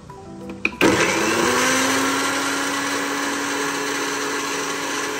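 Electric mixer-grinder switched on about a second in. Its motor spins up with a rising hum, then runs steadily, grinding dry whole spices to powder in its jar.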